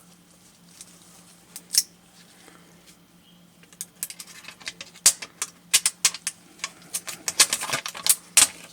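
Thin protective plastic film being peeled off a screen. A few isolated clicks come first, then a rapid crackling run of sharp clicks starts about four seconds in.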